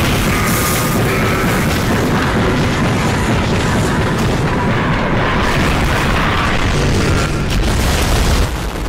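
Loud, unbroken rumble of explosions with heavy bass, with music mixed in underneath.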